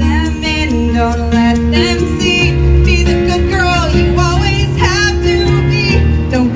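A woman singing a song into a microphone over instrumental backing, amplified through a PA speaker.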